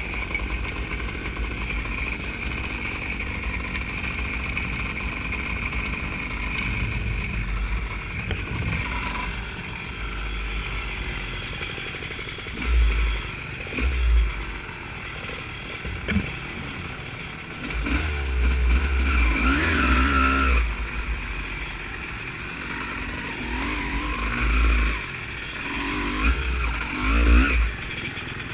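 Honda CR250 two-stroke single-cylinder motocross bike engine running, its pitch rising and falling as it revs, most clearly about two-thirds of the way through. Repeated low rumbling surges come and go under the engine note.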